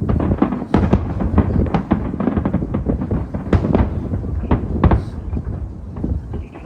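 A fireworks display: many sharp bangs and deep booms going off in quick, irregular succession.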